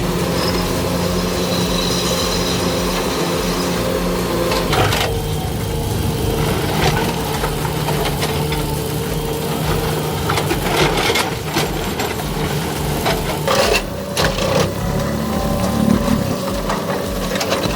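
A heavy machine's engine running steadily, with scattered sharp cracks and knocks of material being broken, several of them between about five and fifteen seconds in.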